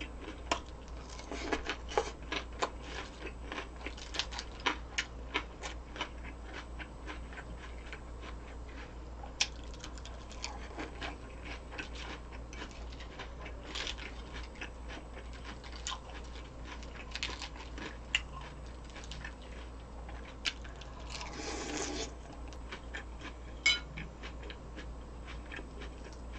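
Close-miked eating: a person chewing and crunching crisp food, with many short irregular crackles, over a steady low hum.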